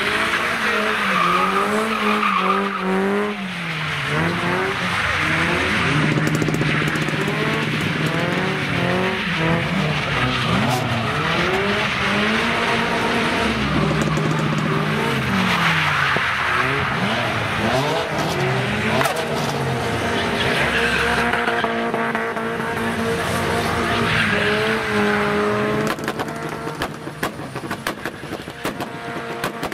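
A car engine revving up and down again and again while the tyres squeal through a long drift. Near the end the revving drops away and a rapid run of sharp pops follows.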